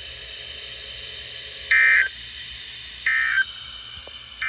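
Emergency Alert System end-of-message data bursts: three short, identical warbling digital tone bursts about a second and a half apart, the last starting right at the end. They mark the close of the broadcast warning.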